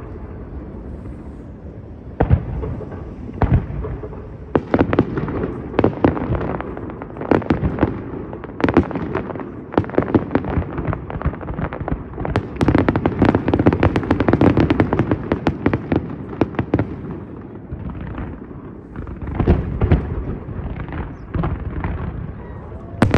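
Fireworks display: aerial shells bursting in many sharp bangs one after another, packed thickest about halfway through.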